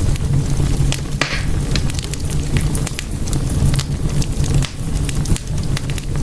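Wood fire in a fireplace crackling: irregular sharp pops and snaps over a steady low rumble of the flames, with one louder pop and a brief hiss about a second in.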